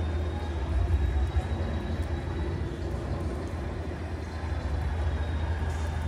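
Steady outdoor ambience on a rainy night: a constant low rumble under an even wash of rain noise, with no distinct events.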